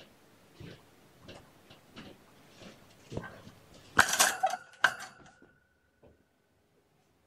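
Light knocks and clicks about every half second, then a louder clatter about four seconds in with a short ringing tone that dies away. This comes as a cat brushes past close to the camera.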